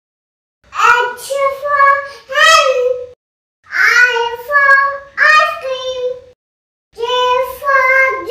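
A two-year-old girl's high voice reciting the alphabet chart words in a sing-song chant, in three phrases with short breaks between them.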